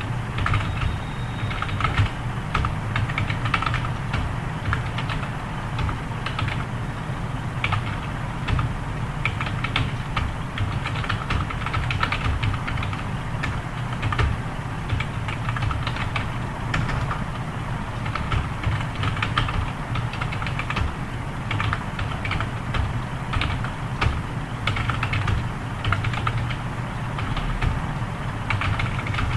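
Computer keyboard being typed on fast and continuously, dense irregular key clicks of a typing speed test, over a steady low hum.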